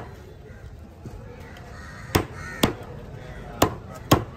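A heavy knife chopping through trevally flesh and bone into a wooden cutting block. There are five sharp chops: one at the start, a pair a little past two seconds in, and another pair near the end.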